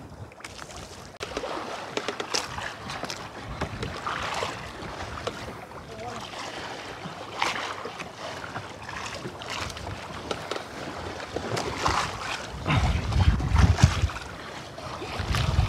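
Ambience aboard a small fishing boat at sea: scattered clicks and knocks over a steady noisy background, with heavy low rumbles of wind on the microphone about 13 seconds in and again near the end.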